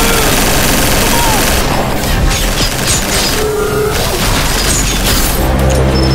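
Sci-fi film battle soundtrack: dramatic score under a dense barrage of gunfire and booms, which thins after about a second and a half into scattered impacts and effects.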